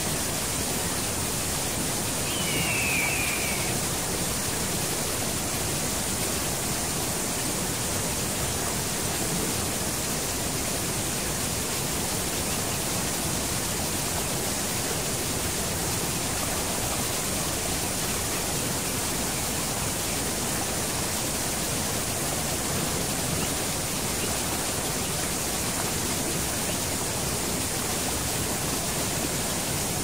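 Steady rushing of a tall waterfall, an even wash of water noise that never changes. About two seconds in, a brief high chirp sounds over it.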